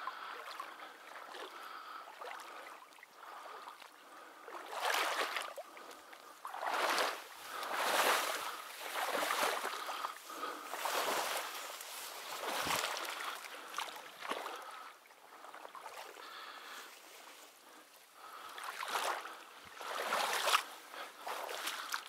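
Irregular swishing and sloshing of someone moving through shallow marsh water and reeds, one surge every second or two.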